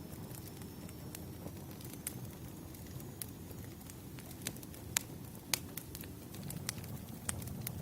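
Wood fire crackling: irregular sharp pops over a low steady rumble, with two louder pops about five and five and a half seconds in.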